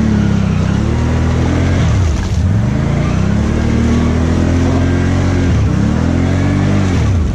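ATV engine revving up and easing off again three times, the throttle worked on and off as the machine pushes through muddy ruts, with a stretch of steady high revs in the middle.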